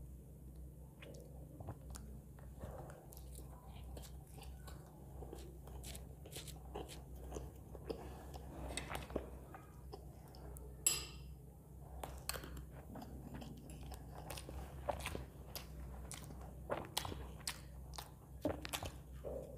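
Close-miked eating sounds: a person biting and chewing soft idli with sambar, with many small mouth clicks and one sharp click about halfway through, over a steady low hum.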